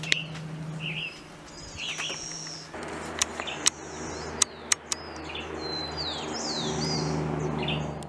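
Several wild birds calling, with short repeated chirps and high sweeping calls, over a low steady hum. A few sharp clicks come about halfway through.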